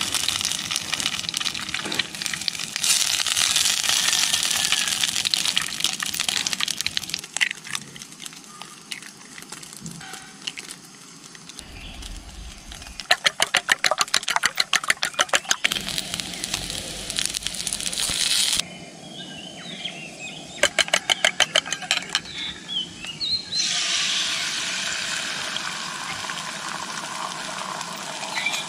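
A sausage sizzling in hot oil in a frying pan on a gas camp stove. Around the middle, a fork beats eggs in a stainless steel bowl with fast clinks, and near the end the beaten eggs are poured into the hot pan and sizzle loudly.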